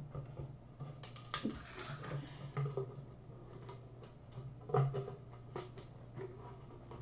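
Scattered light clicks, rustles and small knocks of packaging and kit items being handled, the loudest about a second and a half in and near the middle, over a low steady hum.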